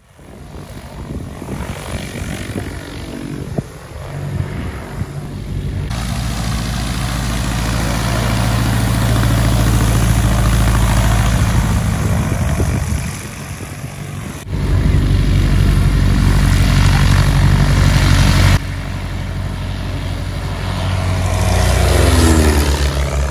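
Light-aircraft piston engines and propellers running on a grass field, a steady low drone. It cuts abruptly between engines several times.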